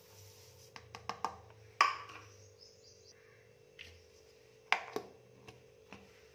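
Light clicks and sharp knocks of a plastic measuring cup and lid against a stainless-steel mixer-grinder jar as sugar is poured in and the jar is closed, the louder knocks about two seconds in and again near five seconds, over a faint steady hum.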